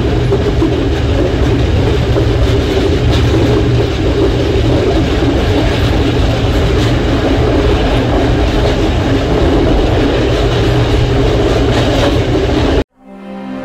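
Passenger train running along the rails, heard from aboard its rear observation car: a steady, heavy rumble of wheels on track with a few faint clicks. The sound cuts off suddenly near the end and soft music begins.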